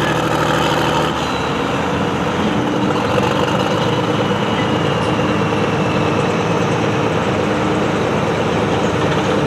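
Hot farm pulling tractor's diesel engine running loud and steady, with a faint high whine that slowly drops in pitch through the middle.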